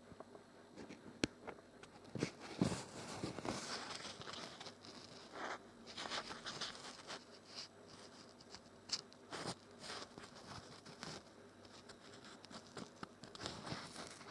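Irregular rustling of cloth and scattered small clicks of fingers handling the fabric and sewing machine close to the microphone, with no steady stitching rhythm.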